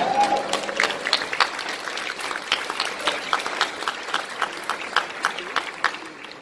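Large audience applauding, many hands clapping at once, fading out near the end.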